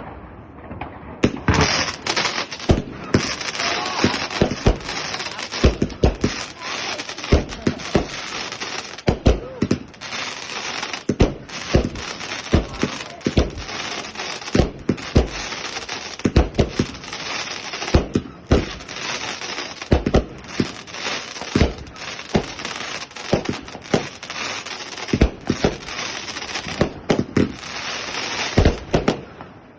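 Fireworks going off in a dense barrage: continuous crackling with many sharp bangs in quick, irregular succession, starting about a second in.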